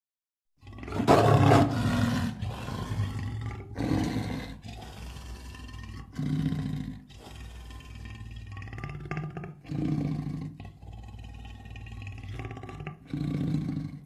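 King Caesar's monster roar sound effects: a long, loud call starting about half a second in, then shorter calls about every three seconds over a steady low rumble.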